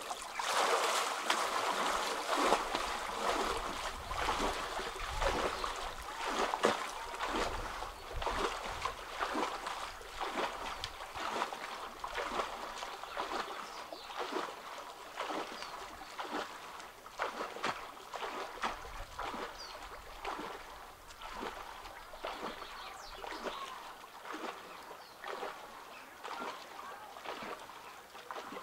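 Swimming strokes splashing in open reservoir water: a busy burst of splashing at first, settling into a steady run of separate splashes as the arms stroke.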